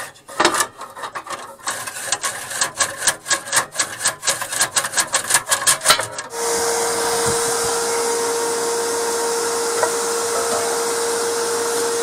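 Rapid repeated scraping strokes, about three to four a second and quickening, as soot is scraped out of a fireplace flue. About six seconds in, a canister vacuum cleaner switches on and runs steadily with a humming tone.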